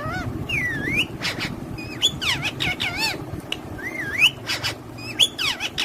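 Parrots calling: a rapid string of short whistled chirps and squawks that swoop up and down in pitch, several overlapping.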